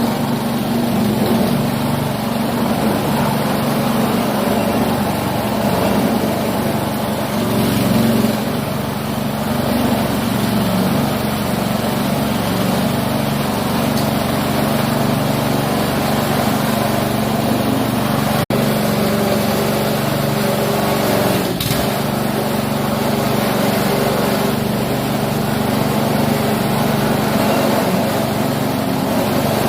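Coconut husk stripping machine running steadily: a continuous motor drone with a broad whirring noise over it.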